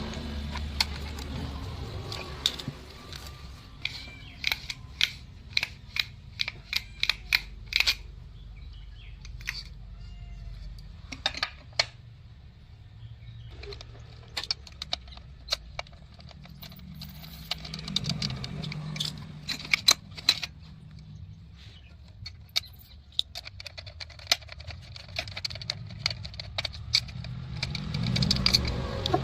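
Small metal parts and hand tools clicking and rattling as a generator's recoil pull-starter is worked on, in several clusters of quick sharp clicks, over a low background rumble.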